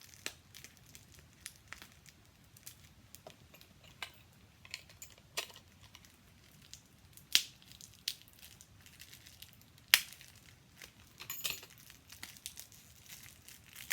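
Packaging being worked open by hand: scattered small crinkles and clicks, with two louder sharp clicks, one about halfway through and one a few seconds later.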